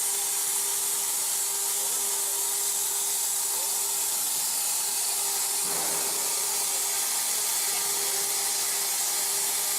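CNC plasma cutter's torch cutting metal: a steady, loud hiss with a faint steady hum underneath, and a brief stronger rush about six seconds in.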